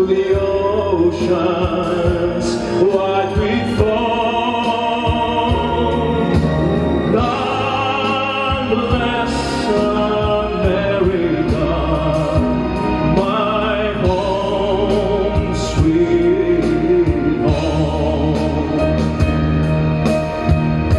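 Music: a man singing long held notes with vibrato over an instrumental backing track.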